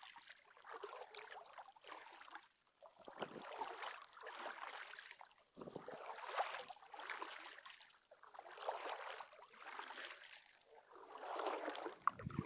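Double-bladed kayak paddle strokes in calm water: the blade dips and pulls through on alternate sides, a watery swish and drip that swells and fades about every two and a half seconds.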